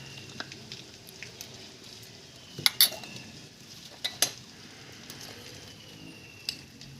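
A metal spoon clinking against a bowl, twice in quick succession about two and a half seconds in, twice again about a second later, and once near the end, as yogurt is spooned in. Under it a faint, steady sizzle of paste frying slowly in oil.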